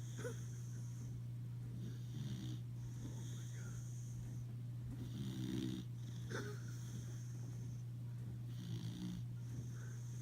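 Boxer dog snoring in repeated breaths, one every two to three seconds, over a steady low hum.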